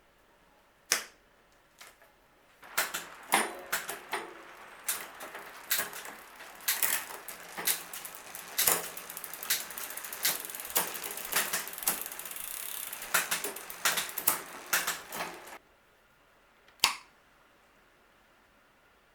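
Rapid ratcheting clicks with louder, sharper knocks among them, running for about thirteen seconds; single clicks come about a second in and again near the end.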